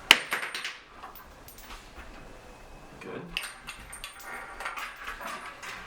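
A sharp click just after the start, then light clinks and rattles of loom parts being handled.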